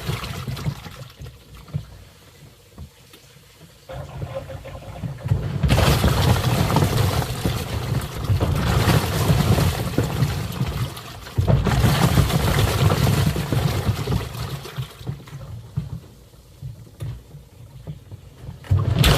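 Twin-tub washing machine's wash tub agitating water: the motor hums under churning, sloshing water. It runs in long spells broken by pauses of a few seconds, the usual on-off cycle of the wash agitator as it reverses.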